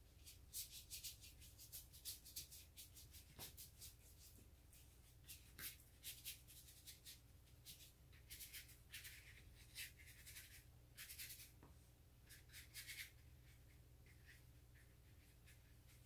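Faint scratching of a paintbrush's bristles stroked back and forth over watercolour paper while laying in a wash: quick runs of short strokes with brief pauses, stopping about three seconds before the end.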